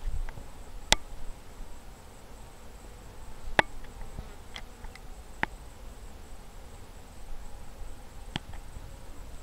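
Honeybees buzzing faintly and steadily around top-bar hives, with a few sharp clicks scattered through.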